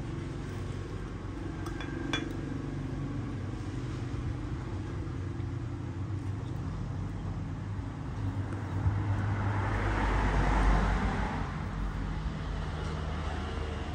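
Steady low engine hum, with a few light clicks about two seconds in and a louder rumble that swells and fades about ten seconds in, like a motor vehicle passing.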